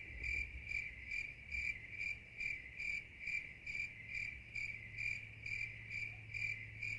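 Cricket chirping in a steady, even rhythm of about two to three chirps a second, over a faint low hum.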